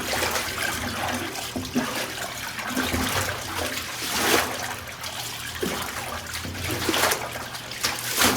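Watery pink slime draining out of an oversized toilet after a flush: a steady rush of water with louder gurgling surges about four, seven and eight seconds in.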